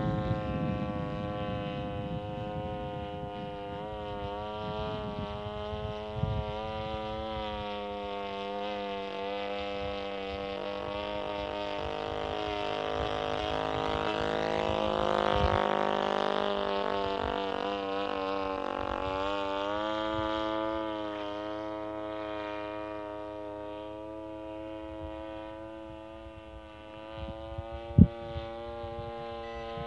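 26cc two-stroke brush-cutter engine on a model airplane in flight: a continuous drone whose pitch wavers a little. It grows louder toward the middle as the plane passes nearer, then eases off. One sharp knock near the end.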